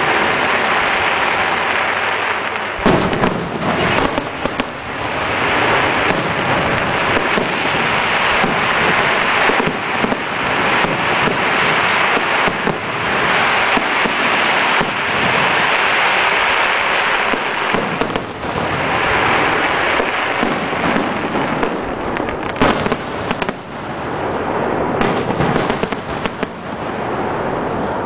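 Aerial fireworks display with shells bursting in quick succession: many sharp bangs over a steady, dense noise that never lets up, the loudest bangs about three seconds in and again past twenty seconds.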